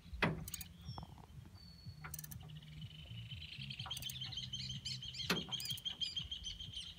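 A bird calling in a rapid, high-pitched trill that builds from about two and a half seconds in and keeps going. Underneath is a low rumble, with two sharp clicks, one near the start and one about five seconds in.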